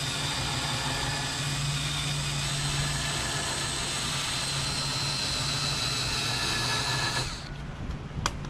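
Cordless DeWalt drill spinning a wire wheel brush against a rusty lawn mower wheel shaft, scrubbing the rust off with a steady whir and scrape. It stops suddenly about seven seconds in, and a single sharp click follows near the end.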